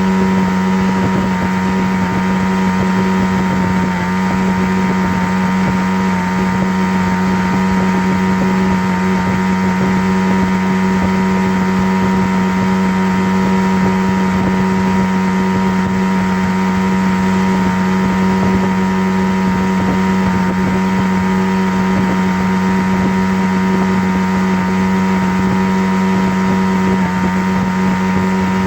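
A steady motor hum at one low pitch, holding unchanged.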